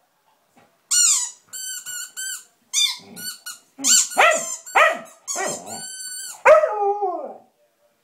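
A Samoyed chewing a rubber squeaky toy: a run of short, high squeaks starting about a second in, mixed with the dog's own short howls that fall in pitch, the loudest about four, five and six and a half seconds in.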